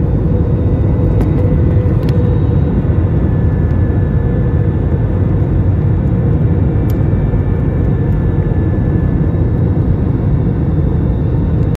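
Loud steady low rumble of a running vehicle engine, with a faint steady hum over it; it cuts off suddenly at the end.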